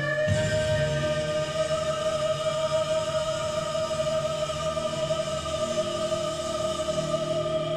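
Live concert recording of a male singer holding one long sustained note over the band, steady with a slight waver near the end.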